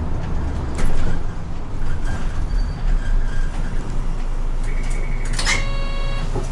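Isuzu city bus heard from inside the cabin: engine running with road rumble as the bus drives. A sharp click about a second in, and near the end a short hiss followed by a brief steady electronic tone.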